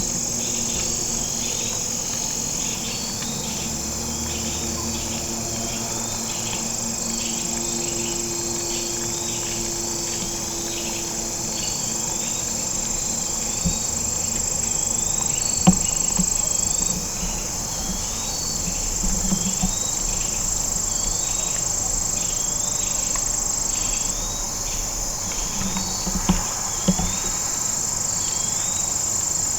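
Chorus of crickets and other insects: a steady high buzz with a chirp repeating about once a second. A few soft knocks come about halfway through and near the end.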